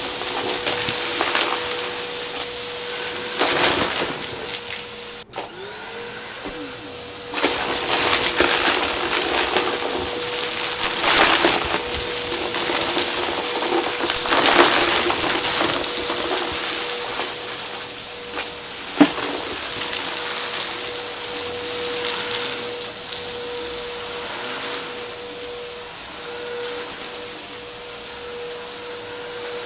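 Vacuum cleaner running with a steady motor whine under a rushing suction noise that swells and fades as it is worked back and forth over crunchy debris. The sound breaks off briefly about five seconds in and the motor tone rises back up; a single sharp click comes later on.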